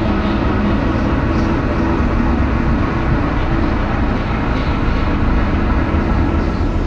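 Loud, steady vehicle rumble that swells in just before the start and then holds without a break.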